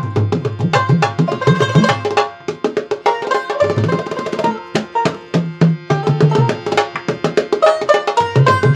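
Bengali folk music: hand drums playing a fast rhythm, their deep strokes bending in pitch, with a plucked dotara melody over them. The drums drop out for about a second partway through, then come back in.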